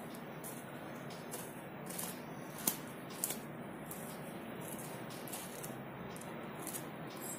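Dried rice-and-sago vadams crackling and ticking as they are peeled off their drying cloth, with one sharper click about two and a half seconds in, over a steady background hiss.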